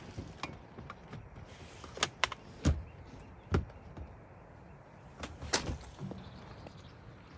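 About half a dozen separate sharp knocks and clunks spread over a few seconds, two of them with a heavier low thud, like gear or a door being handled.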